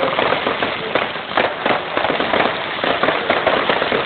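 Fireworks display going off: a rapid, continuous barrage of small bangs and crackling pops with no pause between them.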